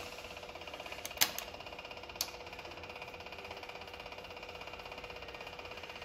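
Metal clinks of a combination wrench against the steel injection line nuts on a Kubota diesel injection pump. The loudest clink comes about a second in, a lighter one follows just after, and another comes about a second later, all over a steady, rapidly pulsing mechanical hum.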